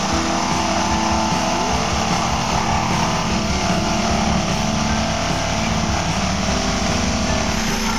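A power saw running steadily under load, cutting through the stacked plywood and tile flooring that traps a built-in dishwasher.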